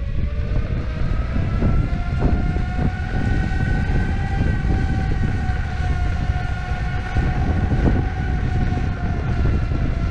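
Electric skateboard's direct-drive motors whining under power while riding, over heavy wind and wheel rumble. The whine rises in pitch in the first second, holds fairly steady, then dips slightly near the end. A few knocks come from the wheels going over the pavement.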